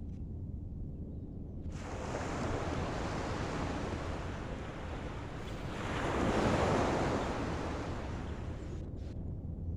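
Ocean waves washing against the shore, with wind buffeting the microphone; one wave surges up loudest about six seconds in, then falls back.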